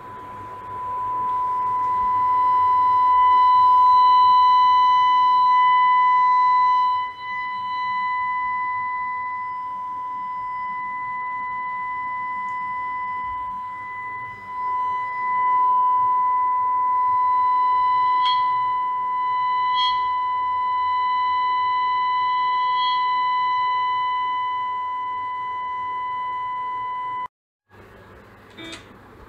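A steady high-pitched test tone played through the home-built EL84 tube guitar amplifier into a speaker, with fainter overtones above it. Its loudness dips briefly twice, and it cuts off suddenly near the end.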